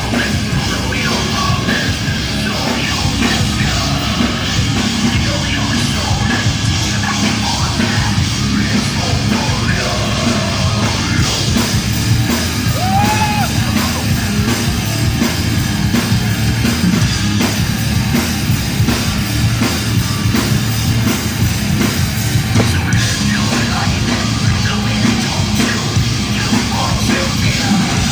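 Heavy metal band playing live, loud and unbroken: distorted guitars and bass over fast drumming, with some shouted vocals.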